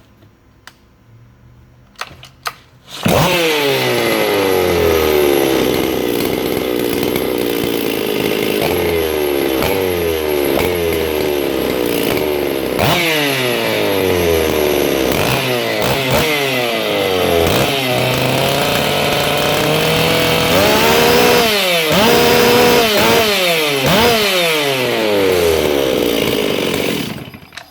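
Stihl MS 460 two-stroke chainsaw, power ported and fitted with a buckshot muffler and max flow air filter, starting about three seconds in and running loud. Its engine note rises and falls over and over as it is revved, and it shuts off just before the end.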